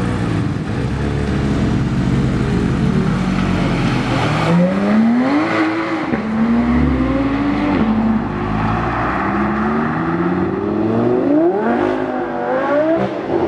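A high-performance supercar engine accelerating hard. Its note climbs steeply, holds, then climbs again and drops sharply at gear changes twice near the end.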